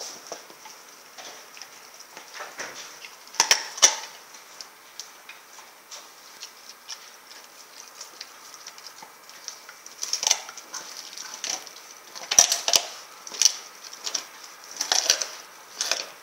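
A Rottweiler chewing on a raw whole turkey: irregular sharp crunches and cracks of bone and meat between her teeth. They come in clusters every few seconds, with lighter gnawing clicks between.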